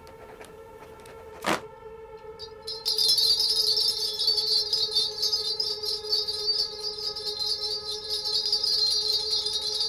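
A bunch of shaman's bells shaken continuously in a dense, rapid jingling that starts about three seconds in, over a steady ringing tone; a single sharp strike sounds about a second and a half in.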